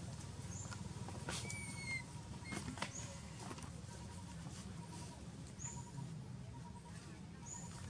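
Short high animal chirps, one every two seconds or so, and a brief slightly falling whistled call about a second and a half in, with a few light clicks, over a steady low outdoor rumble.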